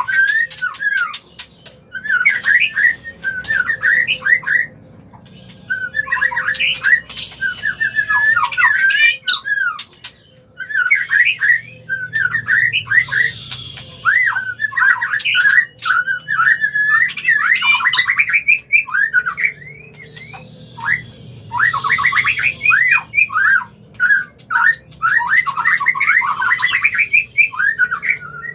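White-rumped shama (murai batu) singing its breeding-condition 'murai kawin' song. Rapid runs of sweeping whistled notes are mixed with harsh, rasping phrases. The song comes in long bursts broken by brief pauses.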